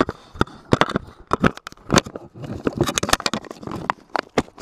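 Camera handling noise: irregular sharp knocks, clicks and scrapes, several a second, as the camera is picked up and moved about with its microphone rubbed and bumped.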